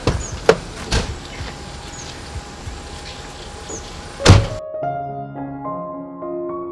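Car door thunks as someone gets into a car, a few lighter knocks in the first second and a loud slam a little over four seconds in, over outdoor background noise. It then cuts straight to a slow keyboard melody.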